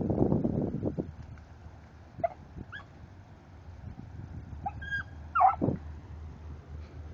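Dry reeds and brush rustling loudly at the start, then a small dog giving short, high yelps and whines in two bunches, about two seconds in and again around five seconds in.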